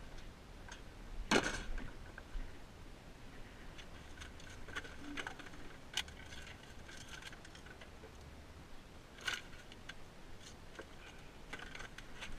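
Scattered knocks, clicks and scratchy rustles from handling a ribbed plastic dumpster lid and the trash inside, with the loudest knock about a second in.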